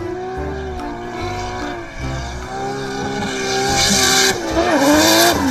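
Drift car sliding sideways with its engine held high in the revs and its tyres squealing. The tyre squeal grows louder about three and a half seconds in, and near the end the engine note dips and then climbs again.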